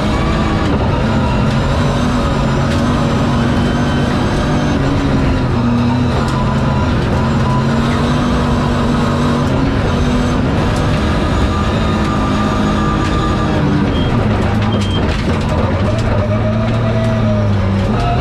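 BMW rally car's engine running hard under load on a gravel stage, heard from inside the cabin, with tyre and road noise and scattered ticks of gravel hitting the car. The engine note holds steady, dips about four seconds before the end, then climbs again.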